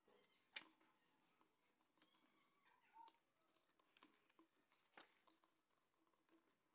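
Very faint rustling and creasing of a sheet of craft paper being folded and pressed flat by hand, with a few soft ticks as it is handled, the sharpest about half a second in and again near five seconds.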